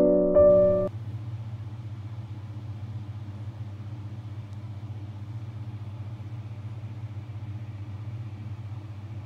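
Piano music stops about a second in, leaving a steady low mechanical hum.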